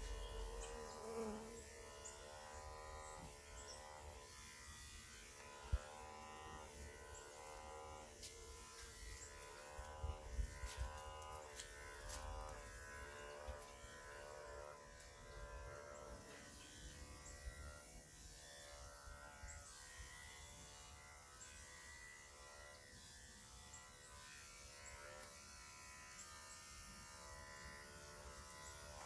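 Faint instrumental music over the steady buzz of electric grooming clippers working on a dog's coat, with a few sharp clicks, the loudest about six seconds in.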